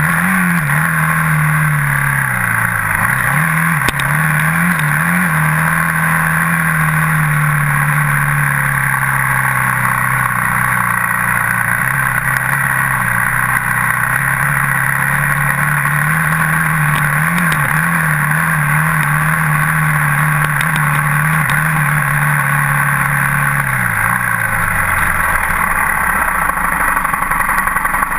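Dirt bike engine running on a trail ride under steady throttle. Its revs dip and wobble briefly about two to five seconds in, then fall away near the end as the rider eases off.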